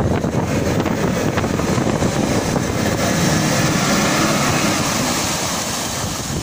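Lifted Nissan Patrol on 42-inch mud tyres driving through deep muddy water and climbing out: the engine works under load while the tyres churn and splash mud and water, a steady loud wash that eases a little near the end.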